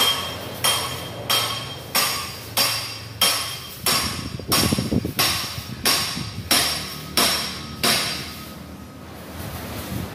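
A hammer striking metal in a steady rhythm, about three blows every two seconds, each with a short metallic ring. About a dozen blows, then it stops about eight seconds in.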